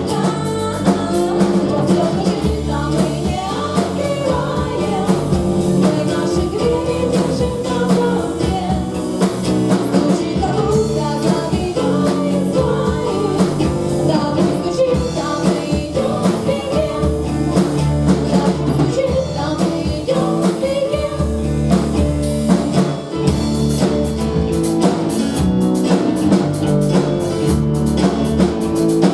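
Live rock band performance: a singer over guitar and a drum kit with a steady beat.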